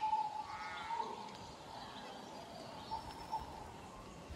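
Animal calls over a steady outdoor background hiss, the loudest and most wavering call in the first second, then fainter calls.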